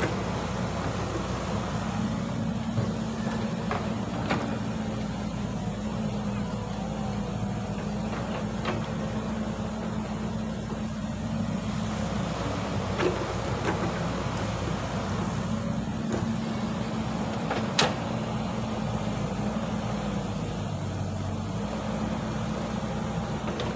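Caterpillar hydraulic excavator's diesel engine running steadily as it digs and loads soil into a dump truck, with a few sharp knocks.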